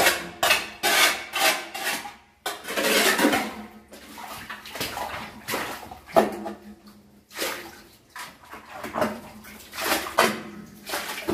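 Water splashing and sloshing in uneven bursts as a worker standing in water at the bottom of a dug well scoops silt and water into a metal bucket during well cleaning.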